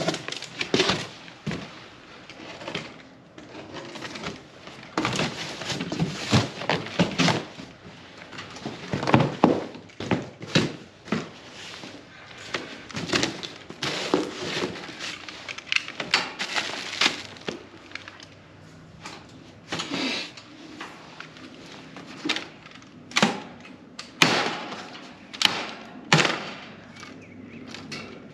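A boxed dog playpen kit being unpacked: cardboard and packing wrap rustling and scraping, with irregular knocks and thunks as the stacked pen panels are shifted and lifted.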